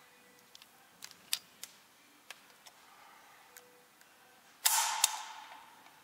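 Master Lock wall-mount combination key lock box being opened: several light plastic-and-metal clicks as the box is worked, then late on a loud sharp metallic clack and a second right after as the door is released and drops open, ringing briefly as it fades.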